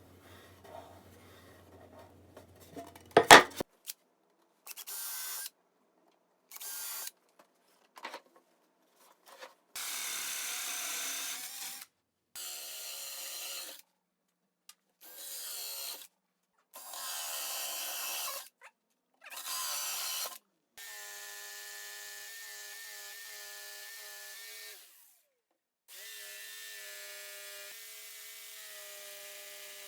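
A sharp knock about three seconds in, then a string of short, abruptly cut clips of a power tool working wood with a rasping noise. Later, two longer stretches of a steady motor whine from the power tool running at constant speed.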